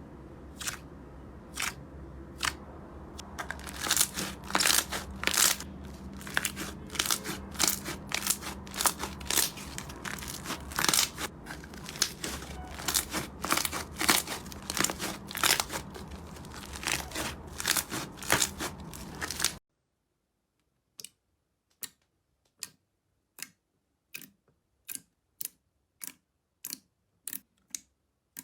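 Slime being squeezed and pressed by hand, giving rapid, irregular crackling pops over a low steady hum. About twenty seconds in, the sound cuts to single crisp clicks at a roughly even pace, one or two a second, with no hum behind them.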